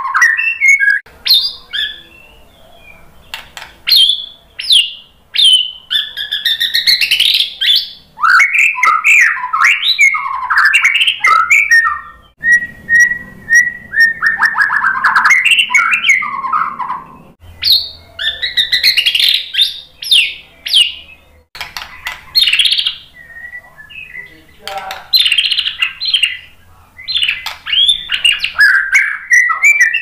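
White-rumped shama singing a varied song of loud whistled phrases, rapid chattering runs and trills, broken by short pauses.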